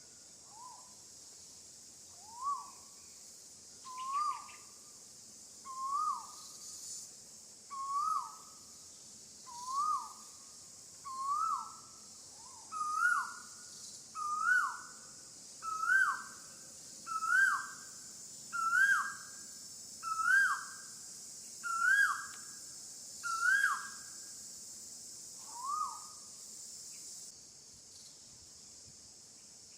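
A bird calling a short swooping note about every one and a half seconds, some sixteen times, the notes climbing in pitch and growing louder through the series before stopping. Behind it is a steady high insect drone that cuts off near the end.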